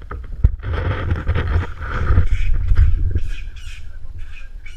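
Macaque giving short squawking calls, over wind rumble, with a knock on the kayak about half a second in.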